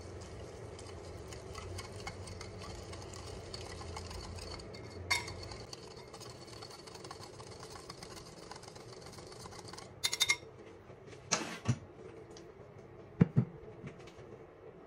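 Metal wire whisk stirring a spice-and-oil marinade in a ceramic bowl, with a steady run of scraping and light clinking. From about ten seconds in come a few sharp knocks of metal on ceramic.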